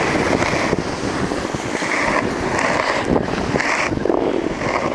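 Wind buffeting the camera microphone, a steady rumble, with short higher-pitched sounds coming and going every second or so.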